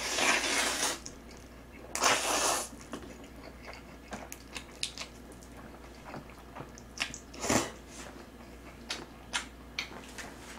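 A person slurping black-bean-sauce instant noodles (jjajang ramyeon) close to the microphone, in two long slurps in the first three seconds and another past the middle, with wet chewing and smacking clicks between.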